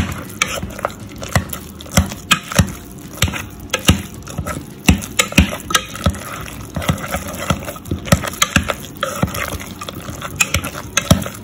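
Metal potato masher working soft, wet mashed potatoes in a pot: irregular squelching with sharp knocks of the masher against the pot, a few a second.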